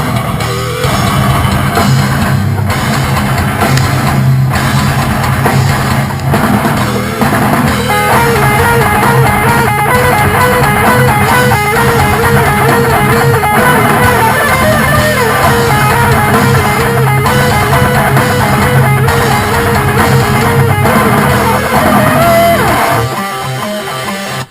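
Rock band playing with electric guitar and drum kit; about eight seconds in, a repeating lead guitar line comes in over the rhythm. The music drops off just before the end.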